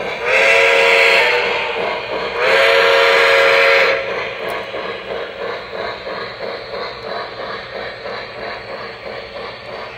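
Lionel Legacy steam locomotive's onboard sound system blowing its chime whistle twice, the second blast a little longer, then steady rhythmic steam chuffing as the train runs.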